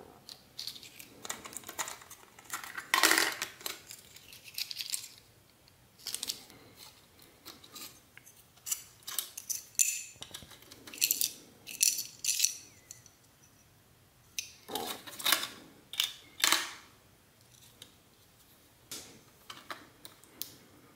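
Irregular clicks and clatter of small hard plastic and metal laptop parts being handled and set down, in uneven clusters with short quiet gaps.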